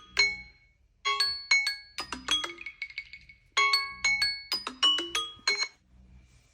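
Smartphone ringtone: a short marimba-like phrase of quick, bright notes, played twice with a pause between, then it stops near the end.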